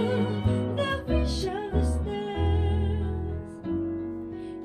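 Small live band playing: a singer over piano and upright bass, with light cymbal touches. The sung line wavers early on and eases into held notes and a softer passage near the end.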